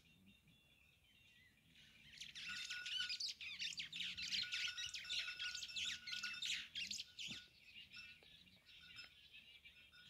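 A flock of small birds chirping together in a dense chatter, loudest from about two to seven seconds in, then fainter.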